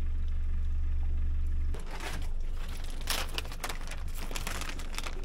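A steady low rumble that stops suddenly a little under two seconds in, followed by a plastic bag crinkling and rustling as it is handled.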